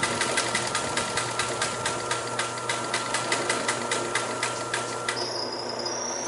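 Singer 16-188 walking-foot industrial sewing machine stitching slowly through denim and Naugahyde at about five stitches a second, its speed held back by hand on the hand wheel. The stitching stops about five seconds in, leaving a steady high-pitched whine.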